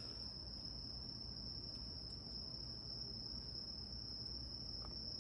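Crickets singing in a steady, unbroken high-pitched trill over a low, even background rumble.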